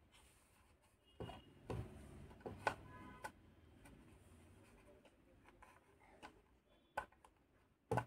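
Light handling noise from a metal microwave control panel: a few scattered taps and knocks as fingers press a new membrane touchpad into place, with a couple of brief faint tones among them.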